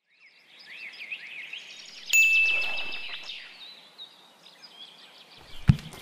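Small birds chirping in quick short calls throughout, with a single bright ding about two seconds in that rings and fades over about a second, the loudest sound here. A soft thump near the end.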